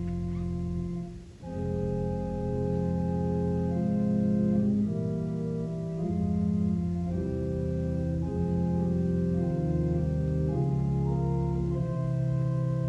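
Organ music: slow held chords that change every second or so, with a short break just over a second in.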